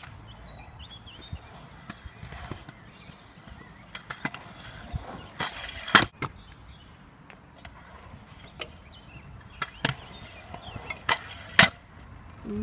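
Stunt scooter rolling in a concrete skatepark bowl, its wheels making a low rumble, broken by scattered sharp clacks as the wheels and deck hit the concrete. The loudest clack comes about six seconds in, with two more near the end.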